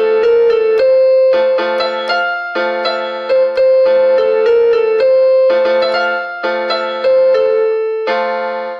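Instrumental break in a song: keyboard chords struck about every half second over a held bass, with no singing.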